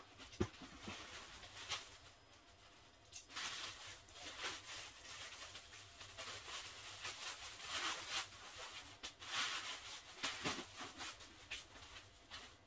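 Plastic wrapping and nylon play pen fabric crinkling and rustling in irregular bursts as a large rolled section is unwrapped and handled, after a couple of sharp clicks at the very start.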